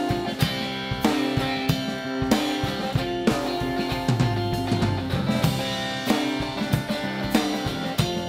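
Instrumental section of a band's song without vocals: guitar over a drum kit keeping a steady beat.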